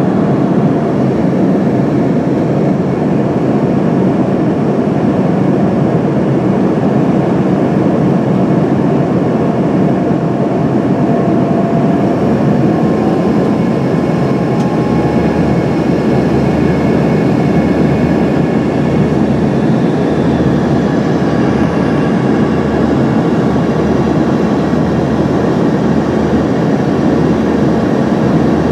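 Steady cabin noise inside an Embraer ERJ 145 regional jet descending on approach: a constant rush of airflow mixed with the hum of its rear-mounted turbofan engines. Faint whining engine tones sit above the rush and shift slightly in pitch.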